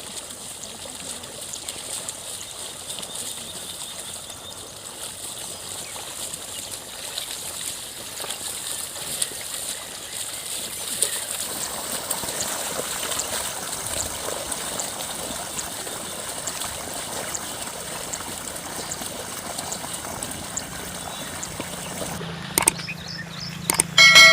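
Steady trickling and sloshing of water and mud in a flooded paddy field. A few sharp knocks and a brief ringing tone come near the end.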